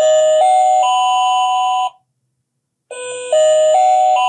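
Battery-powered electronic sound unit in a Zuru Mini Brands Mini Mart toy sign playing a shop-door chime, four notes stepping upward, twice with about a second's gap between.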